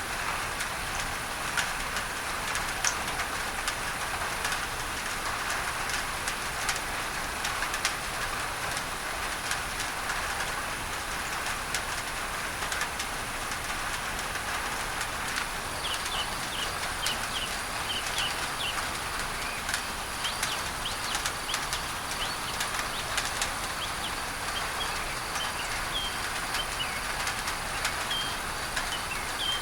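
Rain on a tin roof, a steady patter with many sharp drop ticks, mixed with an even masking noise. From about halfway through, a bird chirps in short, repeated high calls.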